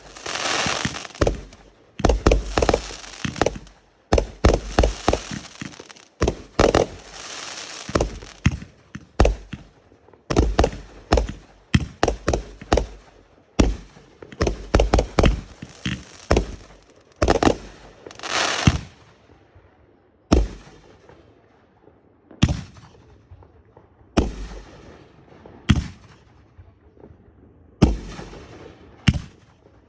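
Fireworks going off: quick clusters of sharp bangs with crackling between them, thinning out after about twenty seconds to single bangs roughly two seconds apart.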